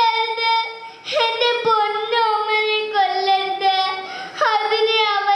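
A young girl singing unaccompanied into a microphone, in long held notes. The singing breaks off for a moment about a second in and again near the end.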